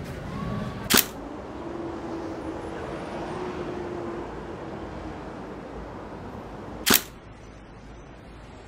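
Two sharp camera shutter clicks, about six seconds apart, over a steady low background noise.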